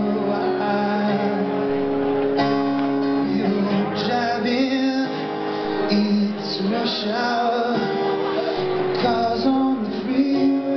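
A man singing a song live with his own strummed acoustic guitar.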